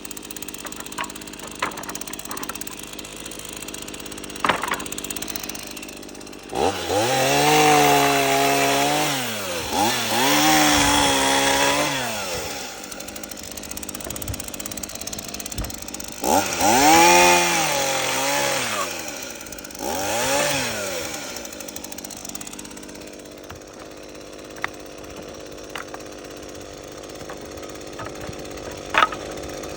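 Stihl MS162 two-stroke chainsaw idling, revved up to high speed four times in two pairs, each time rising, holding briefly, then dropping back to idle. Faint clicks and ticks sound between the bursts.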